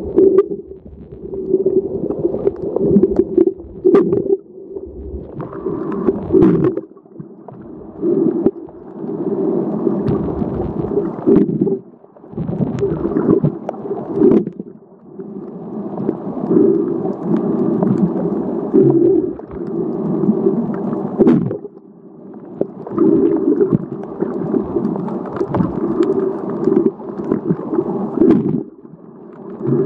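Muffled underwater noise heard by a submerged camera: a gurgling rumble of moving water that swells and fades every few seconds, with scattered sharp clicks.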